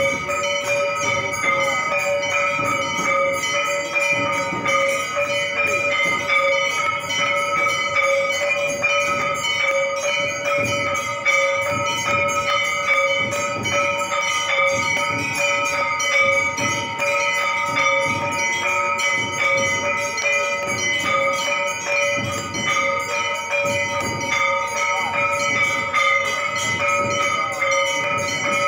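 Hindu temple bells rung rapidly and without a break for the aarti, the quick strikes running together into one steady ring.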